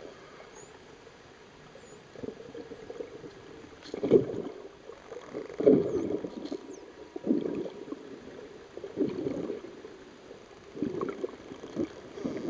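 Water swishing and gurgling heard underwater in repeated surges about every one and a half to two seconds, from a swimmer's strokes and kicks moving water past the camera.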